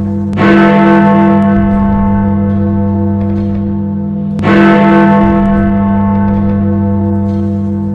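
Big Ben's great hour bell tolling midnight: two strokes about four seconds apart, each ringing on with a long, slowly fading hum.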